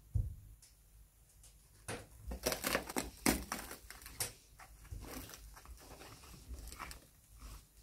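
Cracked, brittle paint coating being scraped and picked off the canvas-covered body of an old straw rocking horse with a small hand tool and the fingers. It makes irregular crackling and crunching, densest and loudest about two to four seconds in, with a sharp knock right at the start.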